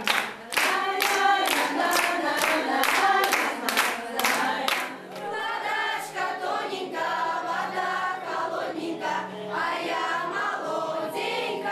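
A group of children singing a folk song together without instruments, at first over a sharp rhythmic beat of about two to three hits a second that stops about four seconds in, then voices alone holding long notes.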